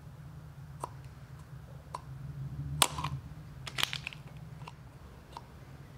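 Scattered clicks and snaps of plastic as a screwdriver pries the center tube out of an old plastic oil filter housing, the loudest about three seconds in, over a steady low hum.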